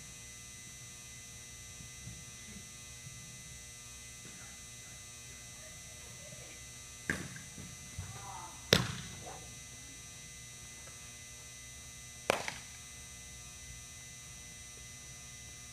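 A pitched baseball popping into the catcher's mitt about nine seconds in, the loudest sound, with a smaller sharp smack just before it and another about three and a half seconds later. A steady electrical hum runs underneath.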